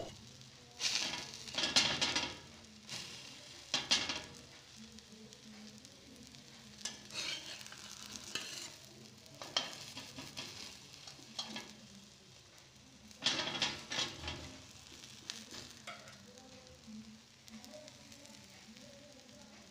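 Flat metal spatula scraping against a black griddle pan (tawa) as an omelette is lifted and turned, with frying sizzle underneath. The scrapes come in short bouts, the strongest about a second in and again past the middle.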